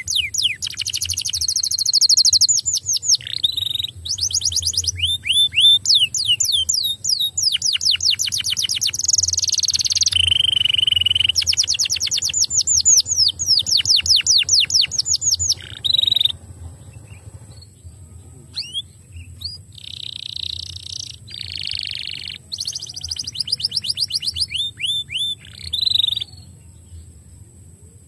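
Domestic canary singing: fast trills of rapidly repeated falling notes, loud and almost unbroken for the first half, then shorter phrases with pauses between them.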